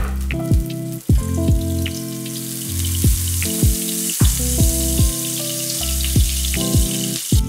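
Butter sizzling in a frying pan as it melts and foams, the hiss growing louder after the first couple of seconds. Background music with a beat plays over it.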